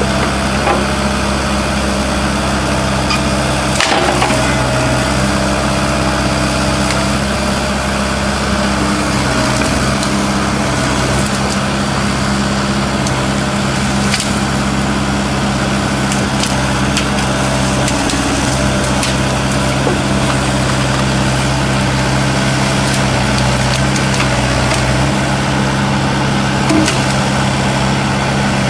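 Kubota U-45 mini excavator's diesel engine running steadily under work, with wood cracking and snapping now and then as tree limbs are broken and pushed.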